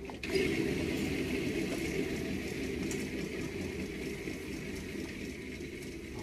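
A steady rushing noise, like a running appliance, that starts suddenly just after the beginning and holds level.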